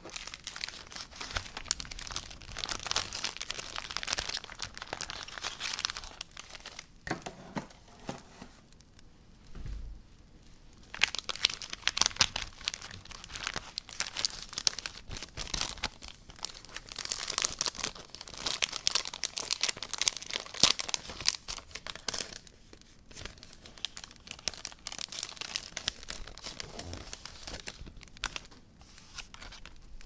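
Packaging crinkling and tearing as a haul parcel is unwrapped by hand, in several long stretches with short pauses.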